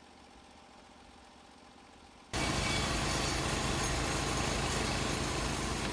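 Faint steady hum, then about two seconds in an engine running steadily cuts in abruptly and keeps going at an even pitch.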